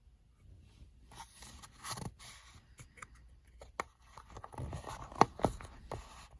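Hands handling a Zippo lighter and its packaging: irregular rustling and scraping with several sharp clicks, the loudest two close together about five seconds in.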